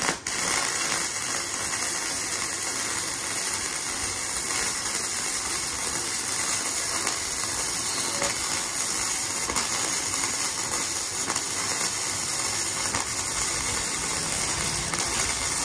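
Gasless flux-cored MIG welding arc from a KOBE MIG-272K welder, struck right at the start and crackling steadily as a bead is run on steel.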